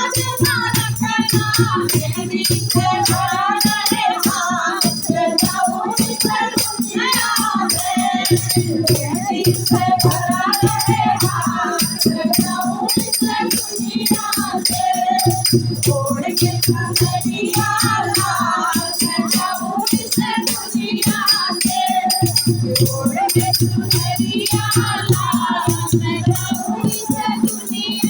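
Hindi devotional bhajan: a voice singing a wavering, ornamented melody over a steady beat, with a continuous shaker-like rattle and repeating low bass pulses.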